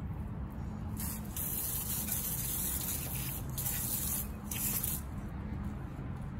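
A spray hissing in about four seconds of long bursts with short breaks, over a steady low hum, during a car hand-wash.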